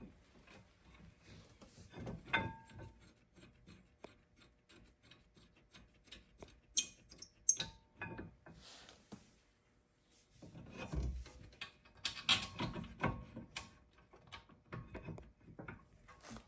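Scattered clinks, knocks and scrapes of metal brake parts and hand tools being handled while a new brake rotor is fitted, with a couple of short metallic rings. The knocks come thickest about two thirds of the way through.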